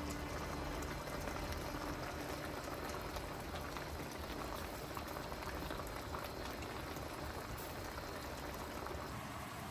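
Braised mackerel and aged kimchi simmering in a wide pan on the stove: a steady bubbling with many fine crackles.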